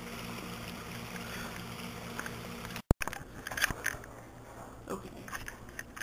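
Steady low hum with an even hiss and a few small clicks while filming pool water, cutting off abruptly about three seconds in. Then, quieter, scattered knocks and clicks of a camera being handled.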